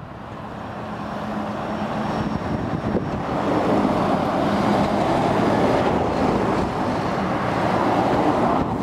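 Heavy articulated lorries driving past close by one after another, engine and tyre noise growing louder over the first few seconds and then staying loud.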